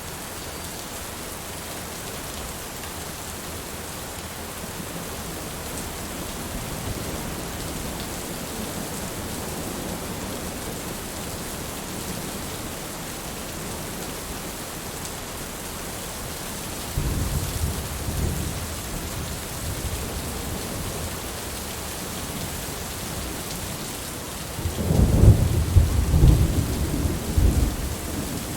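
Heavy rain falling steadily, with thunder rumbling: a faint roll in the first half, a stronger rumble about seventeen seconds in, and the loudest, crackling peal near the end.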